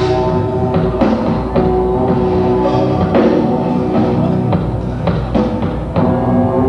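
Live rock band playing: drum kit hits over held chords.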